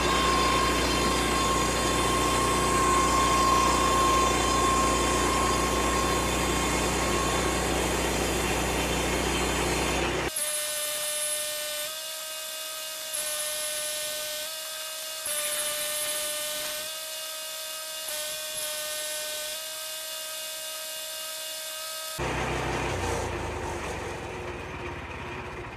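A power saw running and cutting wood, with a steady whine over the cutting noise. About ten seconds in it cuts off suddenly and a steady pitched drone takes over, shifting every second or two.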